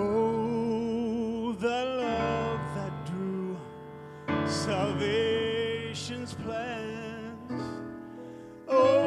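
A man singing a slow worship song solo over piano accompaniment, in phrases that begin right at the start, then about four seconds in and again near the end.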